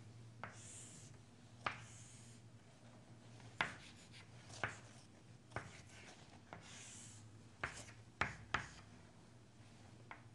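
Chalk on a chalkboard: short scraping strokes as lines and letters are drawn, with about ten sharp taps of the chalk striking the board.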